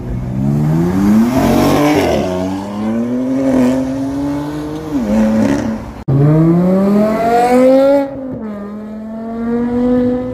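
A BMW M4's twin-turbo straight-six accelerating hard, revving up for about two seconds before dropping at a gear change and pulling on. After a sudden cut, a Volkswagen Golf hatchback pulls away, revving up for about two seconds, then shifting and running on more steadily.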